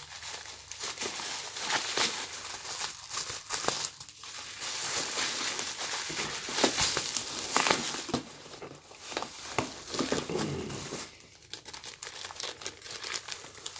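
Plastic bubble wrap crinkling and crackling in the hands as it is unwrapped from an object. The crackles come irregularly and quieten briefly near the end.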